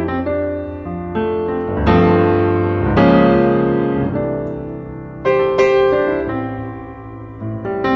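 Background piano music: chords struck about once a second or two and left to ring and fade.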